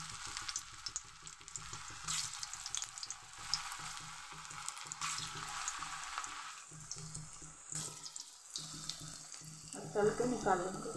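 Capsicum-and-potato besan tikkis deep-frying in hot oil in a kadhai: a steady sizzle with crackling pops. The sizzle dies down briefly about seven seconds in, then picks up again as more patties go in.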